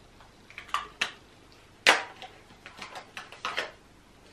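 A series of short clicks and knocks from small makeup cases being handled and pulled out of a bag, the loudest about two seconds in, with a quick run of lighter clicks near the end.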